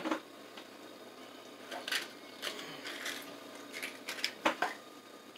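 Scattered clicks and light knocks of small tools and parts being picked up and handled on a tabletop, the loudest pair about four and a half seconds in.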